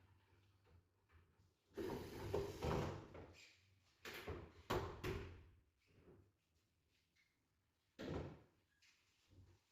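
MDF wardrobe panels or doors being handled: a scraping slide lasting about a second and a half, then a quick run of knocks and bumps, and one more thud near the end.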